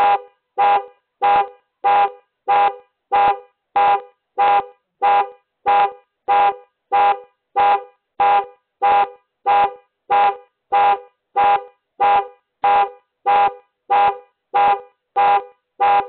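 Car alarm sounding the vehicle's horn in short, evenly spaced honks, about one and a half a second, set off by someone trying the car's door handle.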